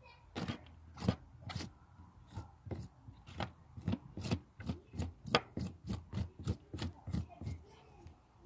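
Knife blade scraping the spines off a nopal cactus pad in quick, short strokes, about three a second.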